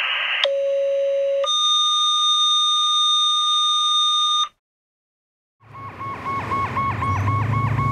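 Two-tone radio dispatch page: a brief burst of radio static, a steady lower tone for about a second, then a higher tone held for about three seconds. After a second of silence, a fire engine's electronic siren comes in on a fast yelp over a low rumble.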